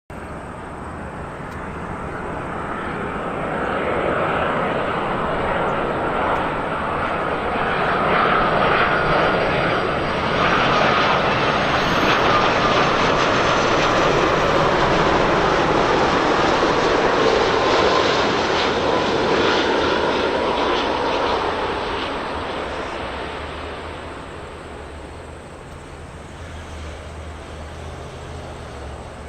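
Airbus A330-300 airliner's twin jet engines passing by on its landing approach. The jet noise builds over the first few seconds and stays loud for about a quarter of a minute, with a whine that slides down in pitch, then fades as the aircraft moves away.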